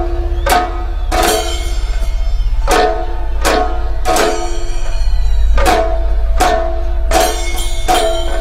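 Background music with a steady, heavy drum beat about every three-quarters of a second over held tones and a deep bass hum.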